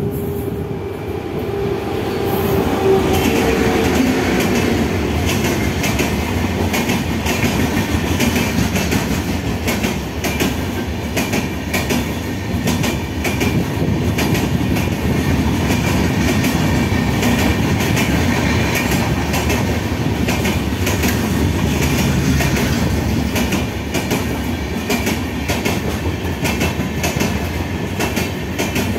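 Express train with a WAP7 electric locomotive and LHB coaches passing at speed. A falling hum comes as the locomotive goes by in the first few seconds, then the coaches roll past with a steady rumble and rapid clickety-clack of wheels over rail joints.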